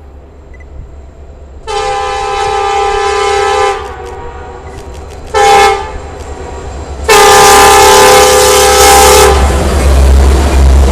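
Air horn of an EMD SD70AC diesel locomotive sounding three blasts, long, short, long, as a chord of several steady tones. After the last blast a loud low rumble of the locomotive's diesel engine rises as it comes close.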